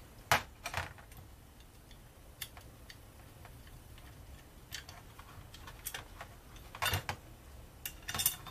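Scattered sharp clicks and light knocks of a screwdriver and small metal parts as the guard is unscrewed from a 3-inch cut-off tool, with a few clicks close together near the end.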